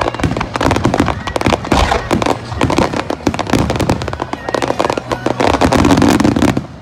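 Barrage of aerial firework shells bursting in quick succession: dense, overlapping loud bangs and crackling.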